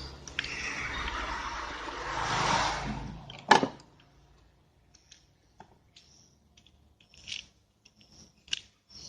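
Bench repair sounds while a replacement electrolytic capacitor is fitted to a subwoofer amplifier board: a steady hiss for about three seconds ending in one sharp click, then scattered small clicks and taps of tools and parts.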